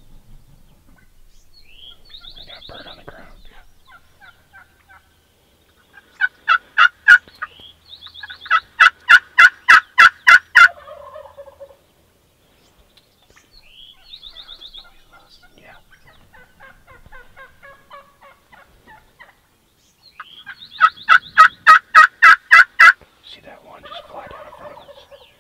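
Gould's wild turkeys calling: loud runs of rapid, evenly spaced notes, about four to five a second, in three bouts. The bouts come about six seconds in, around nine to ten seconds, and again near the end, with fainter calls between them.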